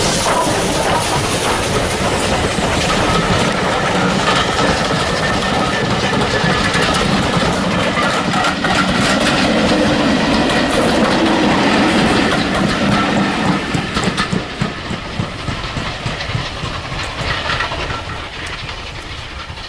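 Steam-hauled train passing close by: wheels clattering over the rail joints with some steam hiss, loud at first and fading away over the last several seconds.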